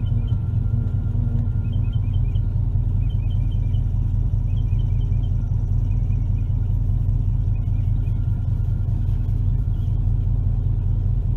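Chevrolet 454 big-block V8 idling steadily, an even low rumble, with short high chirps in small groups over it now and then.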